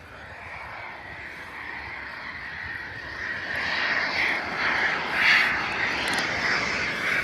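Twin jet engines of a Eurofighter Typhoon approaching, a wavering jet noise that grows steadily louder and strengthens sharply from about halfway through.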